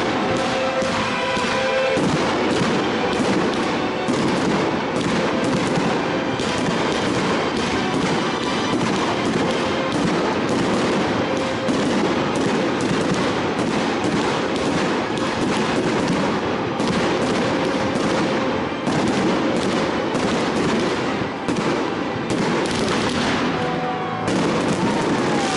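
Fireworks display: aerial shells bursting in a rapid, near-continuous string of bangs and crackling.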